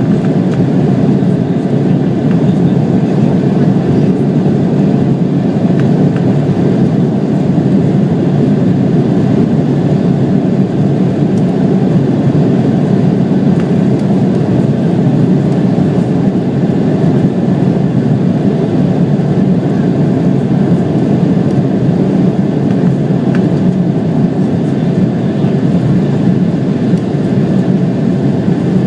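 Embraer 170 airliner's General Electric CF34 turbofans and airframe noise, a steady low rumble heard from inside the cabin.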